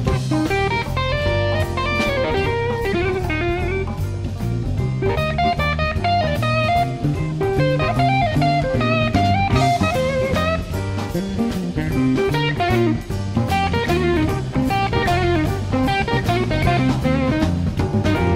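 Live blues-rock band: an electric guitar plays a lead solo of quick single-note runs over a drum kit and bass.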